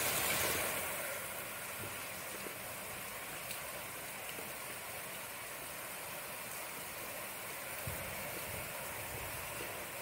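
Rain falling steadily: an even hiss, a little louder and brighter for about the first second before it settles.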